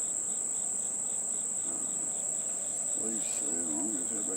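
A steady, high-pitched insect trill with a fainter chirp pulsing about three times a second. From about three seconds in, honey bees buzz close by, their hum wavering up and down as they fly.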